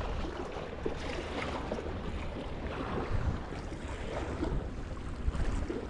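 Sea water washing and lapping against shoreline rocks, with wind rumbling on the microphone.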